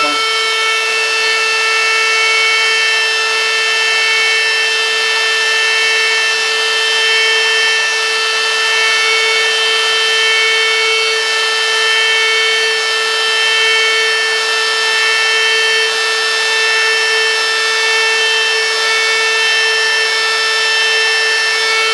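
Handheld wood router's electric motor running steadily at full speed with a high whine, its small pointed bit plunged into the wooden sign to cut small dots.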